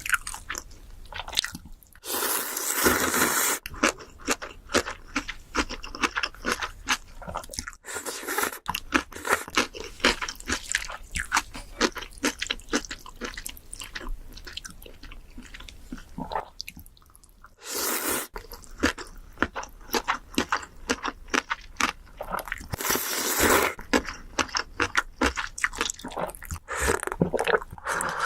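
Close-miked crunching and chewing of food, a dense run of irregular crisp crackles with a few louder, longer crunchy bites.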